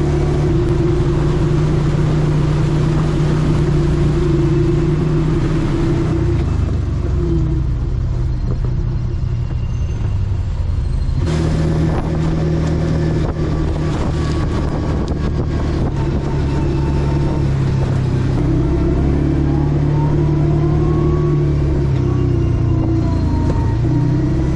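Side-by-side UTV engine running steadily, its note shifting a little, with an abrupt change in the sound about 11 seconds in.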